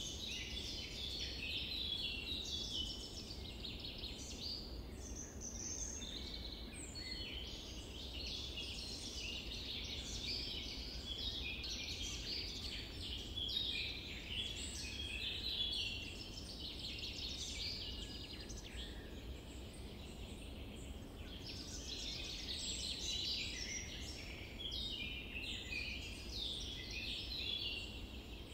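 Chorus of small songbirds chirping and twittering continuously over a low, steady background rumble.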